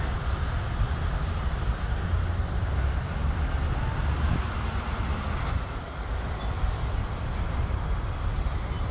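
Steady outdoor rumble and hiss with wind buffeting the microphone in low, uneven gusts.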